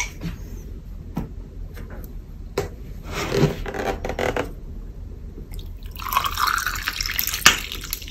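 Liquid being poured in two short stretches, with a few sharp clinks and scrapes of kitchenware; the loudest clink comes near the end.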